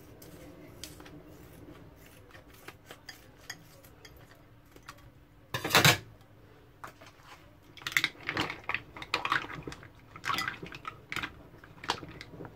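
Mussel shells clattering and clicking into a bowl as they are tipped from their pack, with one loud clatter about six seconds in and a run of rattling shells in the last few seconds.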